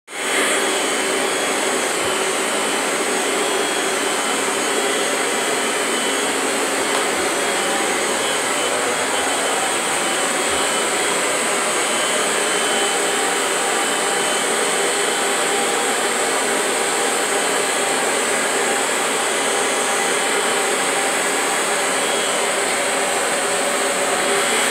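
Upright vacuum cleaner running steadily with its hose attachment sucking air, a constant rush of air with a steady high-pitched whine.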